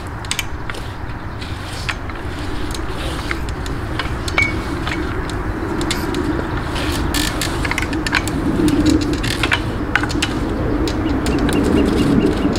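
A long extension pole clicking and scraping against the rough bark of a large tree trunk as it is pushed upward, over a steady outdoor rumble. A short bird chirp comes about four seconds in.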